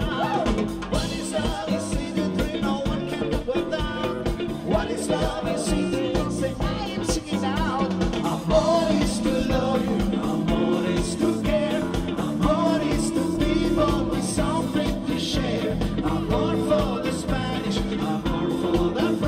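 Live band music with a singer over a steady dance beat, played loud.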